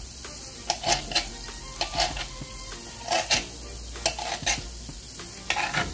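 Chef's knife slicing through an Anaheim pepper and tapping down on a plastic cutting board: a run of uneven cutting strokes, some in quick pairs, over a steady hiss.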